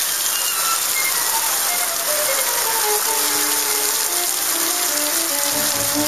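Heavy rain pouring onto lake water and a wooden dock: a dense, steady hiss that does not let up.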